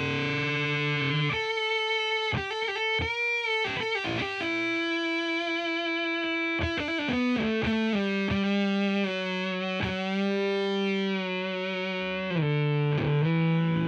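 Electric guitar through the Devi Ever BDSM fuzz pedal with the gain full, played high on the neck with the tone rolled off for an octave-up fuzz. Sustained single notes with bends, some choppy and stuttering, others ringing on.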